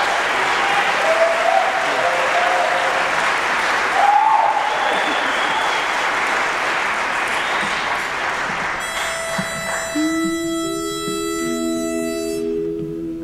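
Audience applauding with a few cheers, dying down. Near the end a single steady note from a pitch pipe sounds for a few seconds, and the barbershop quartet's voices come in one after another, humming their starting notes to take the pitch for the next song.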